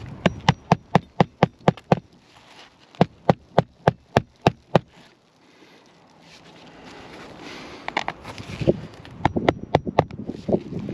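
Hammer driving roofing nails through asphalt shingles: quick runs of sharp strikes, about four a second, in three bursts with a pause in the middle.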